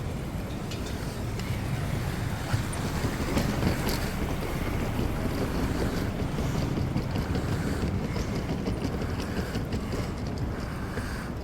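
Vehicle engines running along a flash-flooded street, with water sloshing and wind buffeting the microphone.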